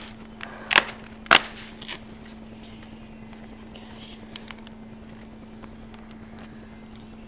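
Cardboard advent calendar door being pushed open: two sharp cardboard cracks about a second in, then a few faint ticks of handling. A steady low hum runs underneath.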